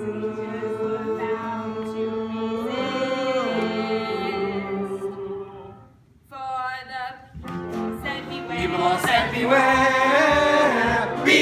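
Chorus of young voices singing together, holding long chords for the first six seconds, then a brief pause and a short note before the group sings on more loudly.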